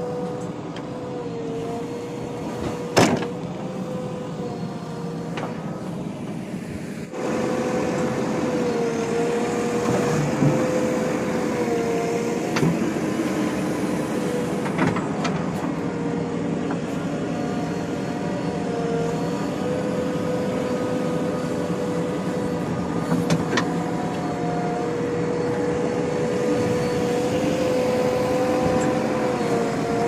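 JCB 3DX backhoe loader's diesel engine running under work with a steady drone, its pitch sagging briefly now and then as the hydraulic arm digs and swings. A few sharp knocks, the loudest about three seconds in.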